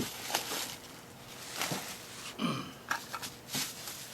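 Cardboard boxes and packing being handled: scattered light knocks and rustles, with a short vocal noise about two and a half seconds in.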